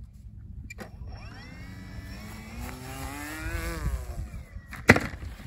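Brushless electric motor of a large RC flying wing (Emax 660 kV with an 11-inch folding prop) throttling up for a hand launch, its pitch rising steadily for about three seconds and then dropping away. Near the end comes a single sharp, loud thump as the wing hits the ground.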